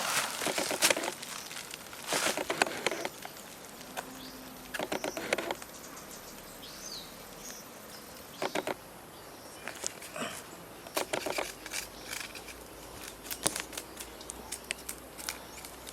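Scattered rustles and sharp clicks, some in quick runs, over a steady background hiss.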